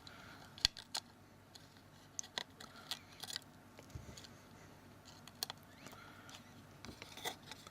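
Scattered light clicks and taps, irregular and a second or so apart, of small phone parts and a tool handled against a smartphone's case while its home-key ribbon cable is fitted.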